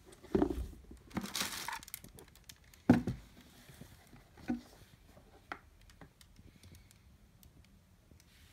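Unboxing handling noise: tissue paper crinkling for about a second, and two soft thumps, one near the start and a louder one about three seconds in, as a leather desert boot and its cardboard shoebox are handled. Small taps and rustles follow.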